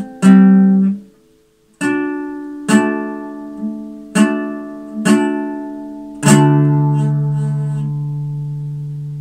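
Acoustic guitar played slowly: single plucked chords or notes about a second apart, with a brief silent break a little over a second in. The last chord, struck about six seconds in, is left ringing and fades out over the final three seconds.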